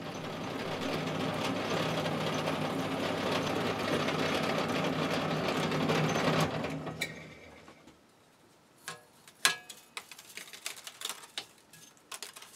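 Bench pillar drill running with its 5.5 mm twist drill cutting into a steel block as a steady machine hum. About six and a half seconds in the motor is switched off and runs down. A few light clicks and taps follow.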